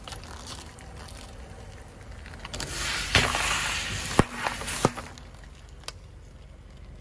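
Liquid-filled plastic drink bottles crushed under a car tyre: a sharp pop about three seconds in as one bursts, a hiss of liquid spraying out, then a few sharp cracks of plastic splitting.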